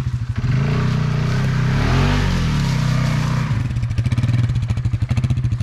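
A vehicle engine running loudly. It revs up and back down about two seconds in, with a rushing hiss, then settles into an even, pulsing chug.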